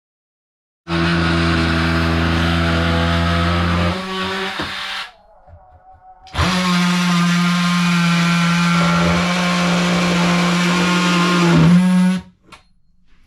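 Electric power tool running at a steady speed in two long runs, about four seconds and then about six seconds, with a short break between. It is being used to tear out wooden cabin walls.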